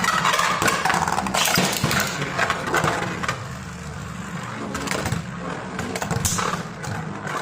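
Two Beyblade Burst spinning tops battling in a plastic stadium: a steady whir of the spinning tops with rapid clicks and clacks as they collide and scrape along the stadium, their slingshot drivers engaged.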